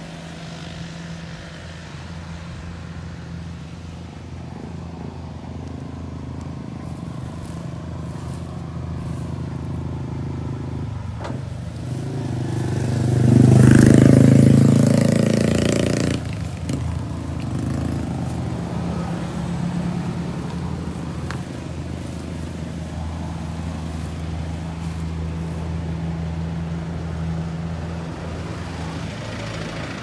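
Kubota DC70 combine harvester's diesel engine running steadily. About halfway through it swells much louder for a few seconds, with a rush of noise, then settles back to a steady run.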